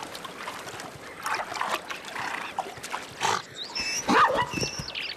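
Zebras making short, rough grunting noises, with a few brief high squeaky calls near the end.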